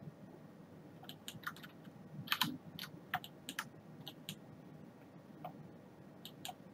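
Irregular clicking of a computer keyboard, a quick cluster of key presses starting about a second in, with a few more keystrokes near the end.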